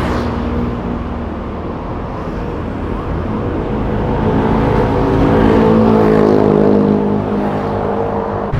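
Road traffic: a motor vehicle's engine passes close by. It grows louder to a peak about six seconds in, then eases off near the end.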